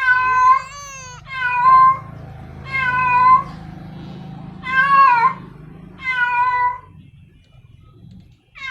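Female cat in heat calling for a male: a string of six short meows, one every second or so, with a longer pause before the last one near the end.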